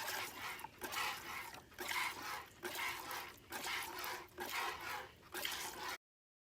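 Goat being milked by hand: repeated squirts of milk hitting a pail, a short hissing spurt roughly every second. The sound cuts off suddenly about six seconds in.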